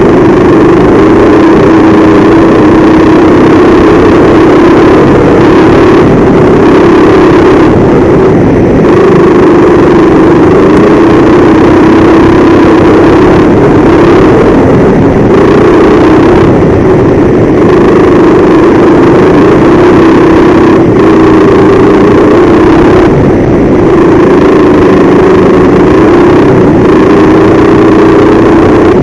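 Go-kart engine running loud right under the onboard camera, its pitch rising and falling as the kart accelerates along the straights and eases off into the corners.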